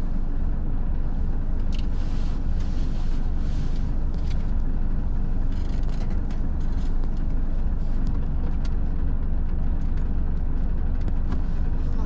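Steady low rumble of a tractor-trailer truck's diesel engine running, with a few faint ticks scattered through it.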